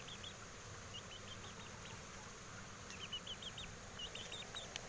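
Faint high-pitched chirping in short runs of four or five quick notes, repeating about once a second, over a quiet outdoor background.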